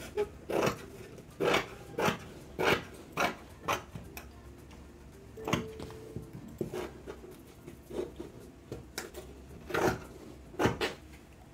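Fabric scissors snipping through ankara print fabric, trimming off excess in a run of short, crisp cuts, about two a second at first, then sparser with short pauses.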